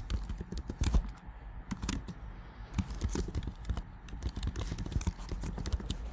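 Typing on a computer keyboard: quick, irregular keystroke clicks.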